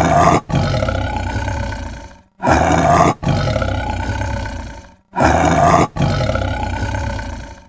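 A big cat roaring, the same roar heard three times about every two and a half seconds: each a loud short call, a brief break, then a longer call that fades away.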